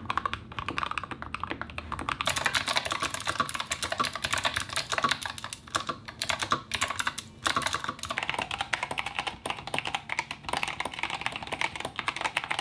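Fast touch-typing on mechanical keyboards, a rapid stream of key clacks, demonstrating the three switch types in turn: linear switches first, then clicky switches with a crisper, brighter clatter from about two seconds in, then tactile switches near the end.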